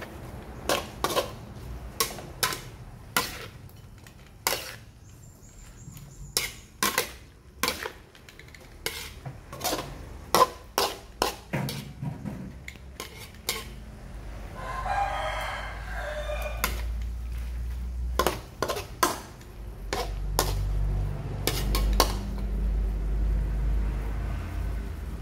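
Metal spatula repeatedly clanking and scraping against a wok while stir-frying squid with chilies, in sharp strokes about every half second. A rooster crows in the background about fifteen seconds in, and a low rumble comes up in the last few seconds.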